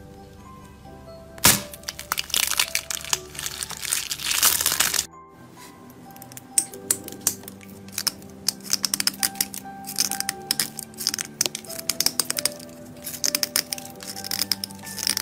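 Soft background music under close hand sounds. About one and a half seconds in, a hard egg-shaped shell cracks sharply in the hand and crunches for a few seconds. After that, a thick stick of blue chalk is scraped with fingernails in a run of quick, dry scratches and crumbling.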